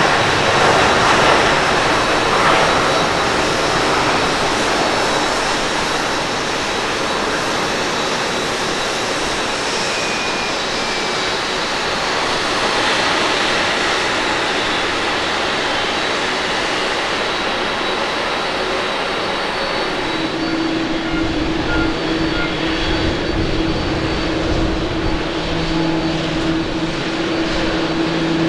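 Jet engines of a Boeing 787-9 (GEnx-1B) at takeoff thrust as it lifts off and climbs away: a broad, steady roar that eases slightly. About twenty seconds in it gives way to a Boeing 737-800's CFM56 engines running on the runway: a steadier hum with a held tone, joined near the end by a second, lower tone.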